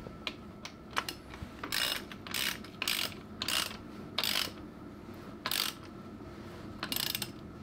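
Socket ratchet wrench clicking as a chain tensioner bolt is tightened: a few light clicks, then about seven short bursts of ratcheting at irregular intervals.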